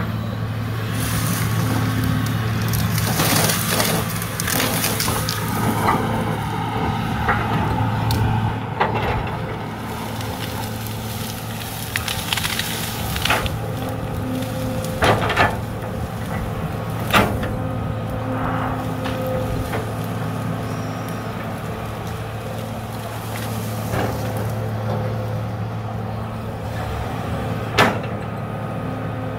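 Hydraulic excavator's diesel engine running steadily under work, with several sharp knocks and clanks scattered through, the loudest about halfway and near the end.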